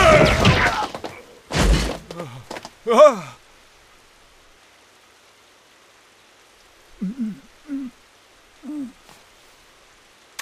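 Cartoon fight sound effects and voice acting: a loud noisy crash at the start, a heavy thump about a second and a half in, then a short pained cry falling in pitch. After a quiet stretch come three short low groans near the end from a beaten fighter.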